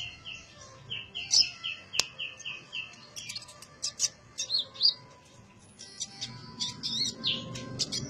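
Caged sunbird singing: a fast run of repeated short notes, about five a second, for the first three seconds or so, then quick, high twittering chirps.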